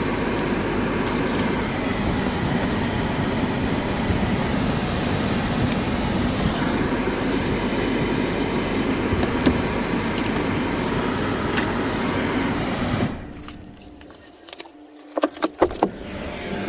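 Steady rumble of a running vehicle, which drops away suddenly about 13 seconds in, followed by a few sharp clicks.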